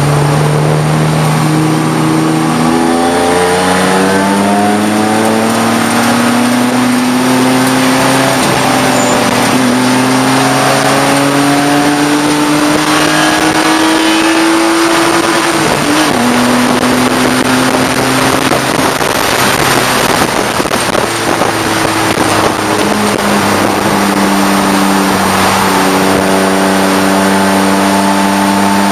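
Race car's engine heard from inside the cabin, pulling up through the revs for about twelve seconds, then dropping suddenly and settling into steadier revs, with wind and road noise throughout.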